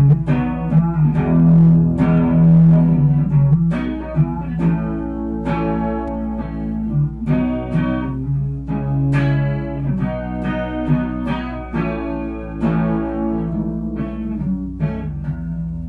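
Playback of a recorded guitar piece: a run of plucked notes and chords, the track noise-reduced, normalized and compressed. A steady low hum sits underneath.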